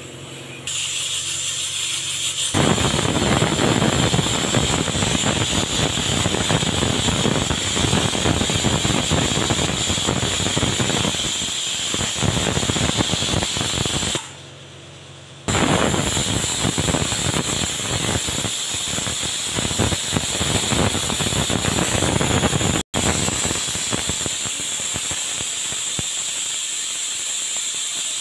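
Aluminium stovetop pressure cooker whistling: steam forced out under the weight valve in a loud, steady hissing whistle, the sign that full pressure has built up inside. It drops out briefly about halfway through, then goes on.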